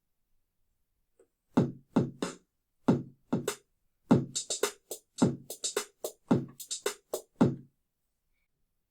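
Drum-kit sounds from a Roland Go Keys 61 keyboard, heard through its built-in speakers: a run of single drum hits tapped out by hand in an uneven rhythm. They start about a second and a half in and stop near the end.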